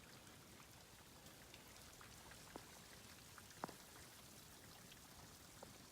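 Near silence: a faint steady hiss with a few soft, separate ticks, the clearest a little past the middle.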